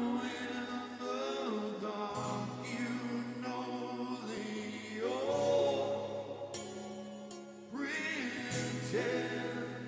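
A man singing a slow song, holding long notes with vibrato over sustained low accompaniment chords that change every second or two.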